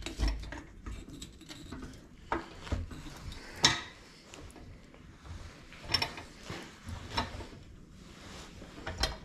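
Scattered light metal clicks, knocks and scrapes of tools working a loosened bearing race in a tractor's bearing housing, with a threaded puller rod and a bar.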